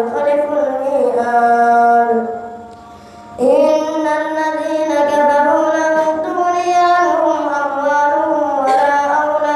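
A boy's voice reciting the Quran in a slow melodic chant, with long drawn-out notes that glide in pitch. One phrase ends about two seconds in, and after a short pause a new long phrase begins.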